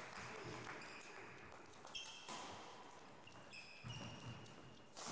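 Sports shoes squeaking and stepping on a wooden badminton court floor, with a few soft thuds. Short high squeaks come about two seconds in and again just before four seconds.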